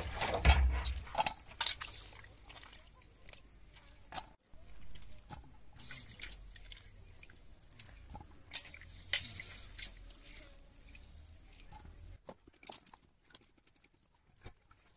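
Shelled snail meat being rinsed and handled in a steel bowl: water splashing and dripping at first, then scattered sharp clicks and knocks.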